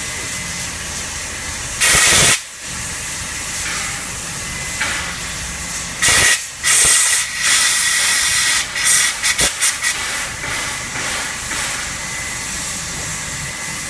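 NSWGR 36 class steam locomotive 3642 hissing steadily as it stands with steam up. Loud blasts of escaping steam come about two seconds in and again around six to seven seconds, then a quick run of short bursts.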